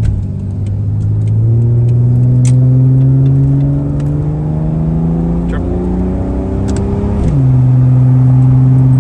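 Ford EF Falcon accelerating under load, the engine note rising steadily for about six seconds. About seven seconds in it drops sharply as the shift-kitted BTR automatic makes a firm upshift, then holds steady at the lower revs.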